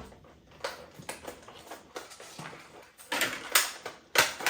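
Hands handling plastic toy packaging: scattered light clicks and taps, then a few louder crinkling, rustling bursts about three seconds in.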